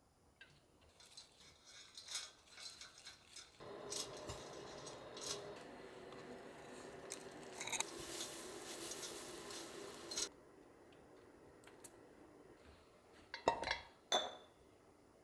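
Kitchen handling sounds: dishes, glass containers and utensils clinking and scraping, with a busier, steadier stretch in the middle and two sharp clacks near the end.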